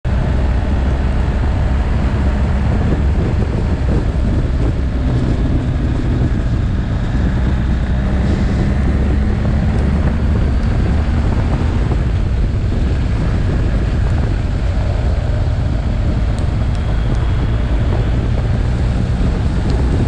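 BMW R1250GS Adventure's boxer-twin engine running steadily under way, its note shifting a little with the throttle through the bends, mixed with wind rushing over the microphone.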